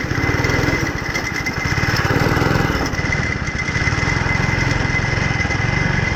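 Go-kart's small single-cylinder petrol engine running under way, its speed rising and falling a little, with a steady high whine alongside.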